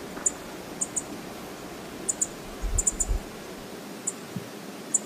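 Steady rushing of water from Brooks Falls, with scattered short, high ticks, often in quick pairs, and a brief low rumble a little before the middle.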